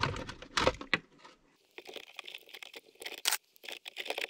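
Small plastic clamp-on current sensors and their leads handled among the wires of a breaker panel, giving a run of short clicks and crackles as the sensors snap shut around the circuit wires. A couple of low thumps in the first second.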